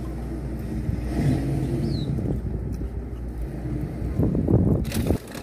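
A car idles with a steady low hum, heard from inside the cabin. A single short high chirp comes about two seconds in, and a louder patch of rustling and knocks comes near the end.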